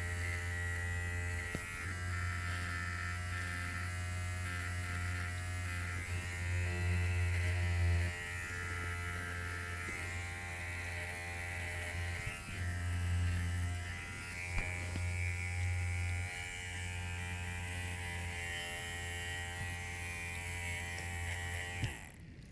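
Electric hair clipper running with a steady buzz, its sound shifting slightly now and then, stopping abruptly near the end.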